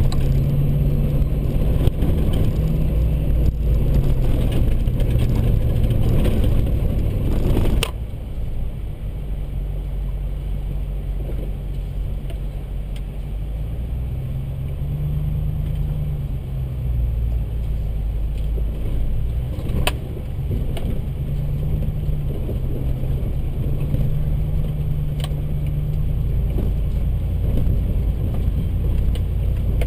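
Ford Raptor pickup's engine and tyre noise heard from inside the cab on a rough dirt trail, the engine note rising and falling with the throttle. The sound drops suddenly quieter about eight seconds in, and there are a couple of sharp knocks later on.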